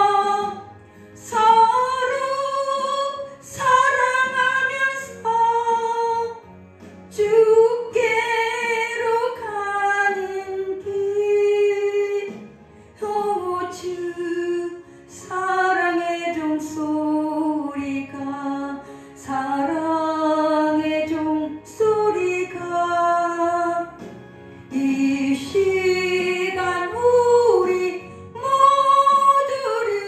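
A woman singing a Korean Christian praise song into a handheld microphone over musical accompaniment, in sustained phrases of a few seconds with short breaks between them.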